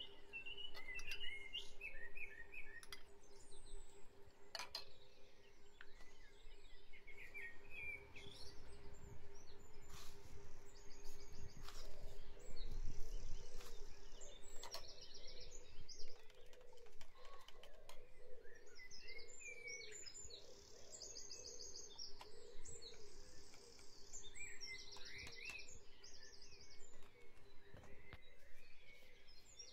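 Dawn chorus of songbirds, many short chirps and trills overlapping, with a few sharp clicks now and then and a faint steady hum underneath.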